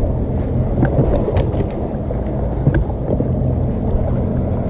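Steady low hum of a bass boat's bow-mounted electric trolling motor under wind rumbling on the microphone, with a few faint clicks about a second in.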